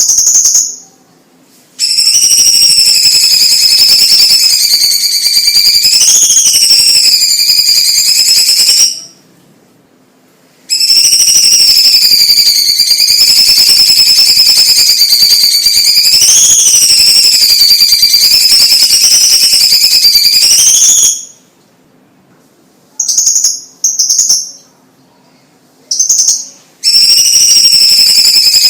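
Chinese leafbird (cucak ijo cina, cucak cungkok) singing loudly in long, rapid buzzing trills whose pitch wavers up and down. Two long phrases of about seven and ten seconds are followed by short bursts and a final phrase near the end, with silent gaps between them.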